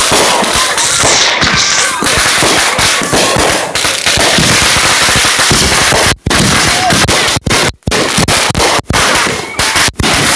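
Fireworks bursting overhead at close range: a dense, unbroken run of bangs and crackles, with the sound cutting out for a split second a few times in the second half.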